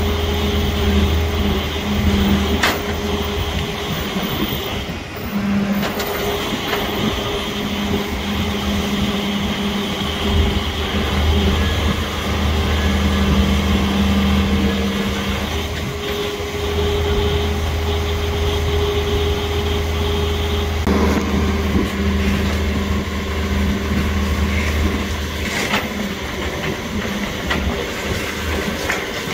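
Isuzu tow truck's diesel engine running steadily to power the tilt tray's winch as the damaged hatchback is drawn up onto the tray: a low drone with a steady hum that shifts pitch twice, and a couple of sharp clicks.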